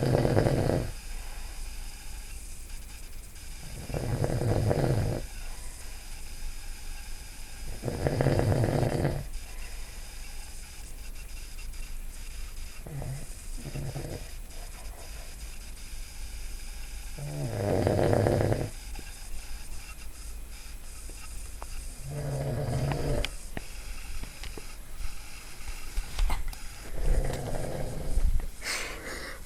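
A man snoring loudly in his sleep: a snore of about a second every four to five seconds, with a pair of shorter snorts in between.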